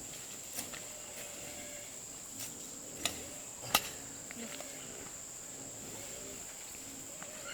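Steady, shrill drone of insects such as crickets, with a few sharp clicks or knocks scattered through it, the loudest a little under four seconds in.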